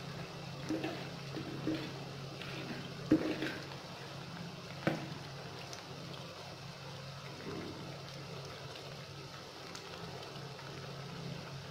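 Potato-and-onion pakoras sizzling as they deep-fry in hot oil in a metal pan, a steady bubbling sizzle over a low hum. A few light knocks, about three seconds and five seconds in, come as a spoon is worked through the oil against the pan.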